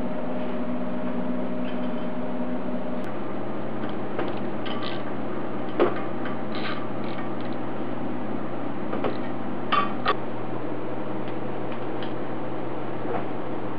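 A few light metallic clicks and clinks as bolts are tightened with a wrench on a stainless steel manifold flange, over a steady hum.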